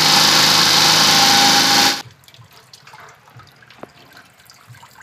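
Flush water gushing steadily out of the open thermostat housing of a Suzuki Alto engine, water from the block carrying out rust. It cuts off suddenly about two seconds in, leaving only faint scattered drips.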